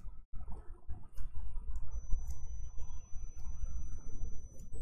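Background room noise on a lecture microphone: a low steady rumble with a few faint clicks, and a thin high tone that starts about two seconds in.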